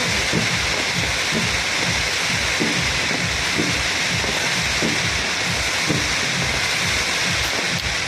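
Fireworks barrage: dense, continuous crackling with rapid low booms, several a second.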